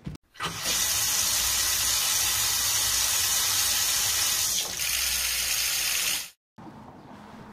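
Bathroom washbasin tap running at full flow into the basin, a steady rush of water; it stops suddenly about six seconds in.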